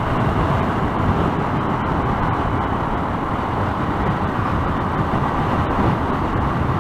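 Steady wind rush and road noise on a motorcycle-mounted camera while riding, with no distinct engine note standing out.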